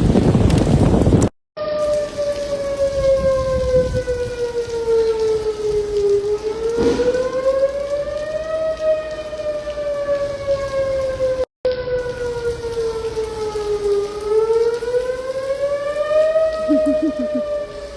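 Whelen electronic outdoor warning siren sounding in wail for a tornado warning: one tone slowly falling and rising again, about one full cycle every eight seconds, over steady rain. A loud rush of noise opens the stretch, and the sound cuts out briefly twice.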